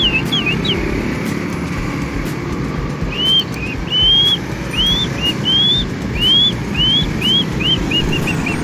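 A man whistling in imitation of bird song: a few quick falling notes, then a run of short, rising whistled notes that come quicker and shorter toward the end. Steady low background noise runs under it.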